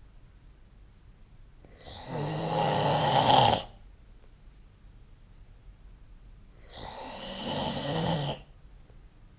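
A sleeping person snoring: two long snores, each nearly two seconds, about five seconds apart, with quiet gaps between.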